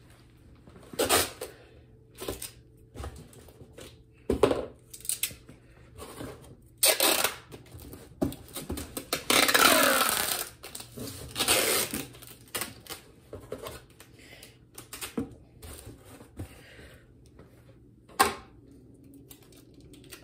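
Packing tape being pulled off its roll and pressed onto a cardboard box. There are several noisy rips of tape, the longest about nine to ten seconds in lasting over a second, between knocks and rustles of the box being handled.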